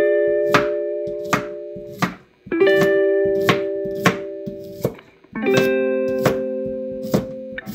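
Plucked-string background music with held chords. Over it, a chef's knife chops through a cucumber onto a plastic cutting board in repeated, fairly regular strokes.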